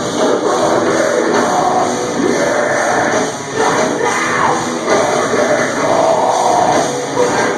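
Loud live metalcore played by a band on amplified guitars and drums, with vocals, heard through a small camera's microphone.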